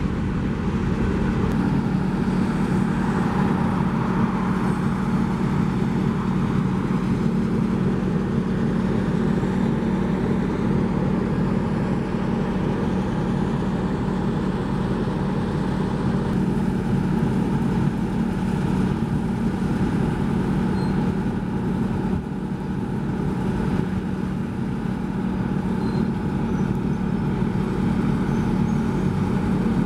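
A steady engine drone at one unchanging pitch over constant rolling and road noise, as a slow freight train of centerbeam flatcars and boxcars passes.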